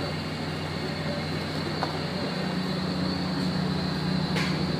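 Steam boiler and steam-jacketed kettle running: a steady low mechanical hum under a constant hiss. A short knock comes near the end.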